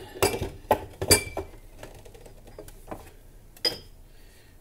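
A series of sharp clinks and knocks of glassware and metal being handled at an espresso machine, about six in all, most of them in the first second and a half. A couple ring briefly, the way glass does.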